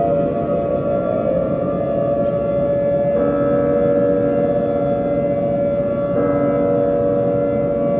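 Sustained siren-like wailing tones, several pitches sounding together and stepping to new pitches about every three seconds, over a dense rumbling noise bed.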